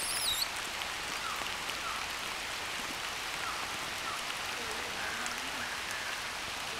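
Steady rain falling, an even hiss of drops on leaves and ground, with a few faint short chirps over it.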